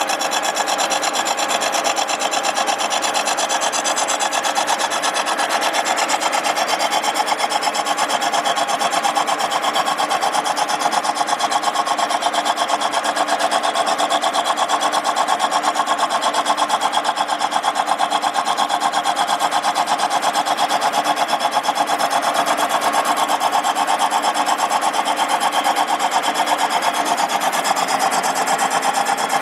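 Milling machine's face cutter skimming the gasket face of a Willys L-134 flathead cylinder head, taking a two-thousandths pass. It makes a steady cutting noise with a fast, even pulsing.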